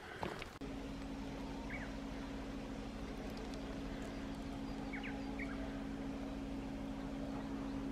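A steady low machine hum starts about half a second in and holds even, with a few short, faint bird chirps over it.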